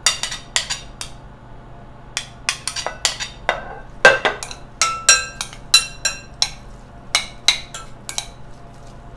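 Metal spoon clinking and scraping against a plate and a glass mixing bowl as diced jalapeño is pushed in and stirred. Irregular sharp clinks, some ringing briefly; the loudest comes about four seconds in.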